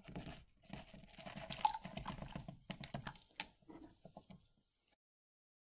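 Crucible fragments and powdery reaction residue scraped off a scoop and tipped into a glass beaker of dilute sulfuric acid: a run of small clicks, ticks and scraping as the pieces land. The sound stops abruptly about five seconds in.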